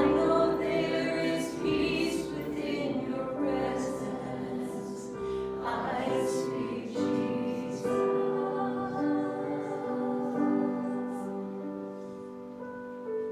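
Congregation singing a worship song together with instrumental accompaniment, in long held notes that grow softer near the end.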